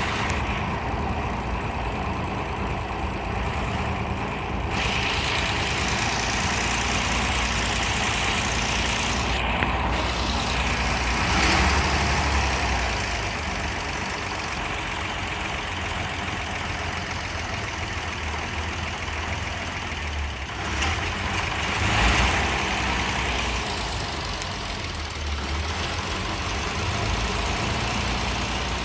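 The rebuilt engine of a J.G. Brill Model 55 interurban railcar idles steadily just after its first start, with two brief swells in loudness along the way.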